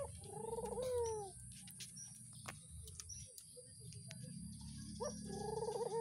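Ringneck doves (Barbary doves) cooing: two coos about four seconds apart. Each is a short note followed by a longer wavering coo that falls at the end.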